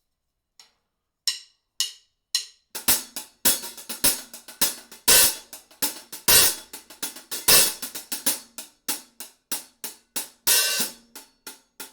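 Drum kit played with the hi-hat standing in for a güiro's scraped rhythm: a few light taps, then from about three seconds in a steady run of hi-hat strokes, some left ringing open, with lower drum hits underneath.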